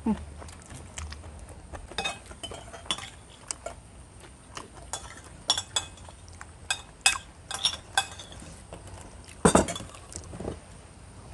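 Spoons clinking and scraping against ceramic plates as people eat, in a string of separate sharp clicks, the loudest about nine and a half seconds in.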